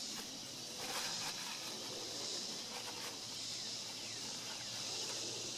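Aerosol contact cleaner hissing in short sprays into a turn-signal bulb socket to clean a bad connection, over a steady high insect drone.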